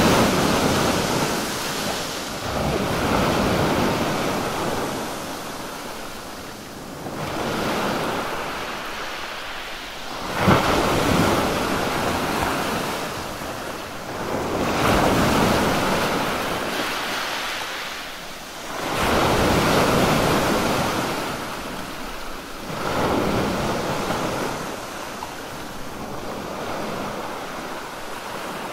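Waves breaking and washing up on a sandy beach, one surge every three to four seconds, each swelling and then drawing back.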